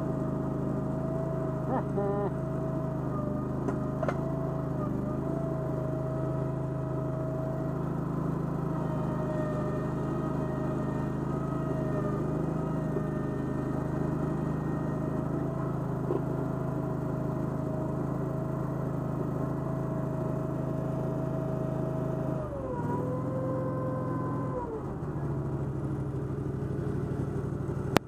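Toro Dingo mini skid steer's gasoline engine running steadily, with a high whine over it. About 23 seconds in the engine speed drops, the whine falling in pitch, and it settles lower again a couple of seconds later.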